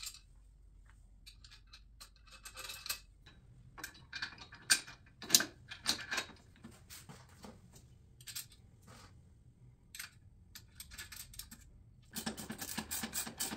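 Light metallic clinks and taps of the Skil SPT99-11 table saw's folding steel stand and its hardware being handled, as an H bracket with a plastic spacer is fitted against the stand frame. The clicks come singly and scattered, then thicken into a quicker run near the end.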